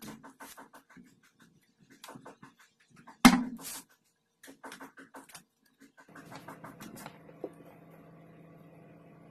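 A series of sharp knocks and clicks of plywood being handled, with one loud knock about three seconds in. From about six seconds on, a steady low hum.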